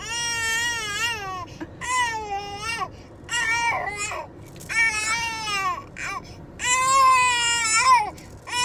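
A baby crying hard: a string of about six long wails, each a second or so, with short catches of breath between them.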